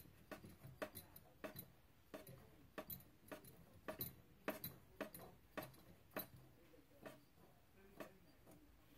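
Small, sharp metallic clicks, irregular at roughly two a second and thinning out near the end, as the old steam-radiator vent valve is turned by hand on its threads to unscrew it.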